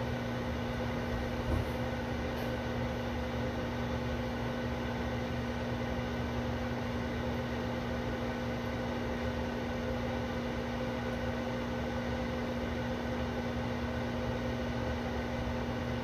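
Microwave oven running: a steady hum with a constant low tone over fan noise. There is one soft knock about a second and a half in.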